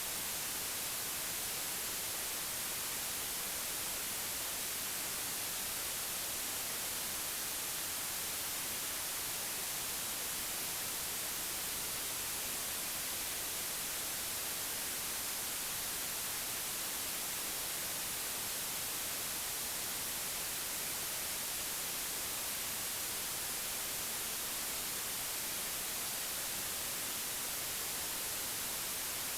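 Continuous white noise: a steady, unvarying hiss, strongest in the treble.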